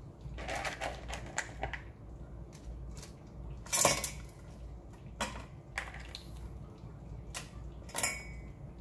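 Crab pieces and shells clattering against the inside of a stainless steel pot as they are dropped in by hand: a string of irregular clicks and knocks, the loudest about four seconds in.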